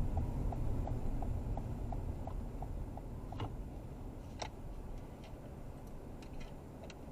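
Car turn-signal indicator clicking about three times a second as the car pulls into a parking space. The clicking stops a few seconds in, then a couple of sharper clicks follow over a low cabin rumble that fades as the car comes to a stop.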